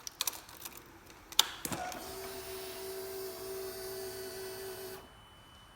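A few clicks as a 2016 Yamaha YZF-R1M is switched on, then a steady electric whir for about three seconds that cuts off suddenly. This is the bike's key-on priming before the engine is started.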